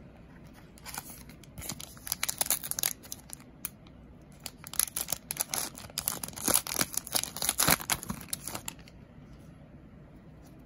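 A trading card pack wrapper being torn open and crinkled by hand, in two spells of crackly tearing: a shorter one about a second in and a longer one from about the middle until shortly before the end.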